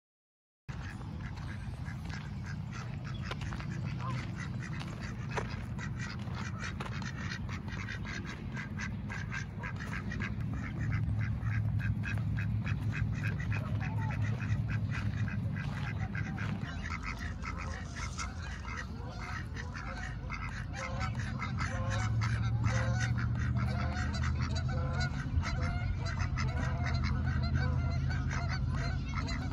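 Domestic ducks quacking in many short, rapid calls, starting about a second in, over a steady low rumble.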